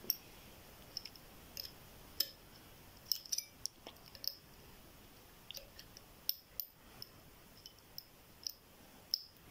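Small, sharp metallic clicks at irregular intervals, a couple of dozen in all, from a pick and tension wrench working the pins of a GLK ten-pin euro dimple cylinder lock.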